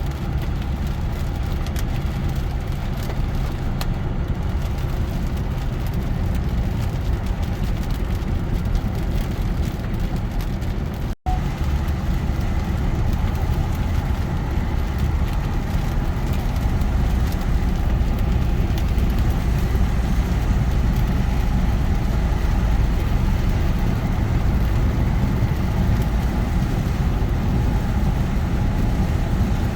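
Steady low rumble of road and engine noise inside a moving car. A brief drop-out comes about eleven seconds in.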